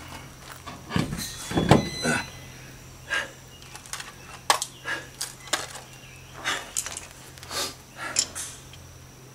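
A front wheel being handled on its hub: a couple of heavier thuds about a second in, then irregular metallic clinks and clicks as lug nuts are picked up and fitted, over a faint steady low hum.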